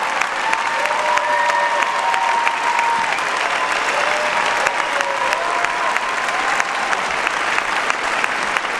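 Large audience applauding steadily, a dense patter of many hands clapping, with a few long held tones over the clapping.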